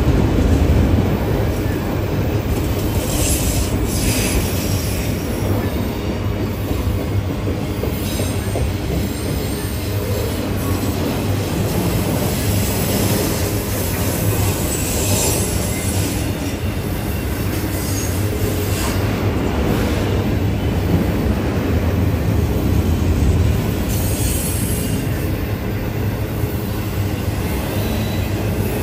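Freight train of autorack cars rolling past at close range: a steady rumble of steel wheels on the rails, with faint high wheel squeals now and then.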